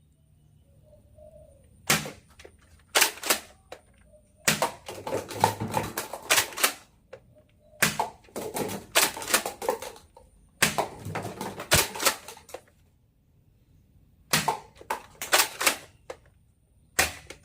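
A toy foam-dart blaster being worked and fired over and over, heard as clusters of sharp plastic clacks and snaps with short quiet gaps between them.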